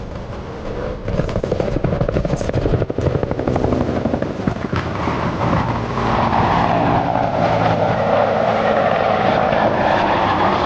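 Bell UH-1N Twin Huey helicopter flying, its twin turbines running and its main rotor beating rapidly. About six seconds in it grows louder, with a strong mid-pitched rush taking over.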